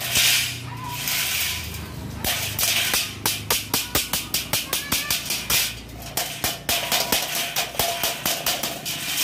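Claw hammer tapping quickly on a galvanized steel furring channel, a fast run of light metallic taps at about four a second, pausing for about two seconds near the start.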